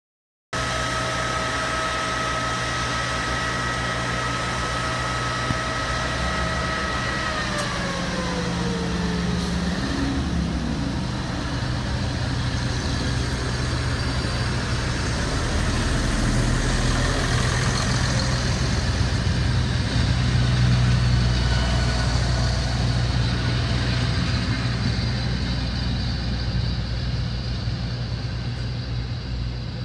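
FER ALn 668 diesel railcar's engines running as it pulls out of the station, building up to a peak about two-thirds of the way through and then easing off as it moves away. A high whine holds steady and then slides down in pitch about a quarter of the way in.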